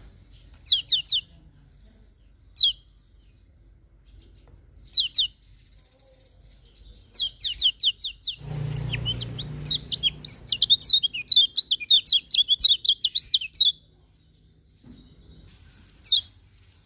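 Lemon-bellied white-eye (kecial kuning) singing: short bursts of quick, high, falling notes every couple of seconds, then a long run of twittering for about five seconds in the middle. A brief low rumble sits under the start of the run.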